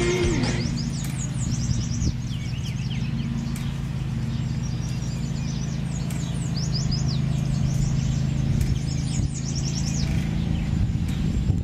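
Songbirds chirping in quick runs of high, falling notes over a steady low hum.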